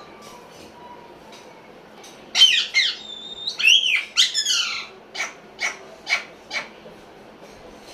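Pet parrot calling: a quick run of high, gliding squawks and whistles, then four short sharp calls about half a second apart.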